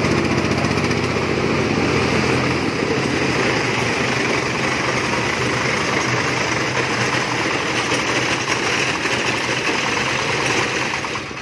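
Single-cylinder diesel engine of a công nông farm truck running steadily in deep mud, its low note thinning out a couple of seconds in, with the steady hiss of rain.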